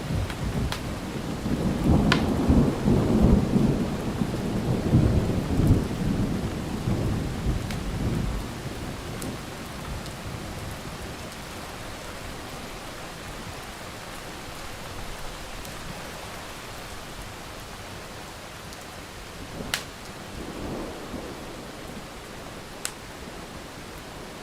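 A rolling thunder rumble over steady rain, loudest from about two to eight seconds in and then dying away. After that comes an even rain hiss, with a few sharp clicks.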